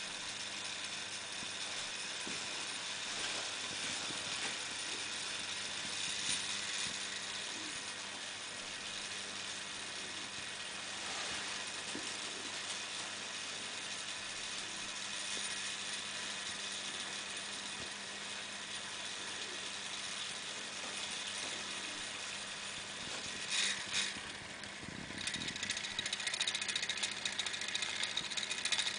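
Carbon arc lamp burning with a steady crackling hiss and a faint low hum. About 24 seconds in there are two short louder crackles, after which the hiss grows louder.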